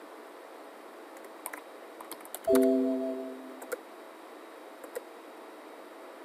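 Scattered light clicks of computer keys. About two and a half seconds in, a single loud pitched ring starts sharply and fades out over about a second.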